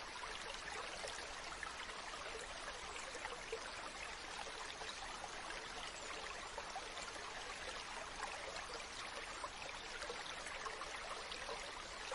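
Stream water running, a steady even rush with fine splashy flecks and no change.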